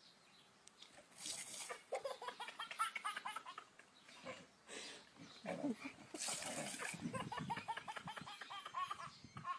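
Two short hisses of a garden hose spray nozzle, about a second in and again after six seconds, amid bursts of high-pitched laughing and squealing voices.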